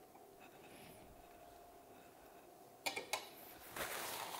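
Quiet room tone with a faint steady hum, then two sharp clinks about three seconds in: a metal utensil knocking against kitchenware while fishing a cinnamon stick out of hot juice.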